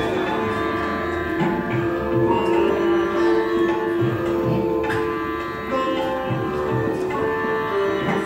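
Indian-style instrumental music from the show's soundtrack: plucked strings over a steady held drone, with regular low hand-drum strokes.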